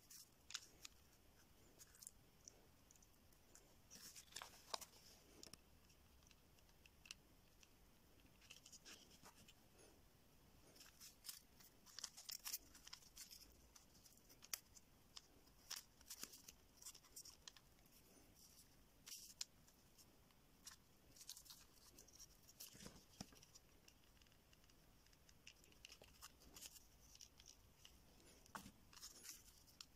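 Faint, scattered clicks and rustles of small model-making parts being handled on a tabletop: a tiny motor, wires and ribbed strips being fitted together.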